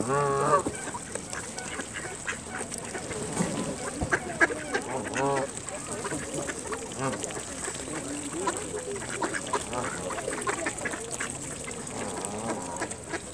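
A flock of mallards and Canada geese calling while they feed: repeated quacks and short nasal calls, the loudest right at the start, over scattered clicks of bills pecking at grain close by.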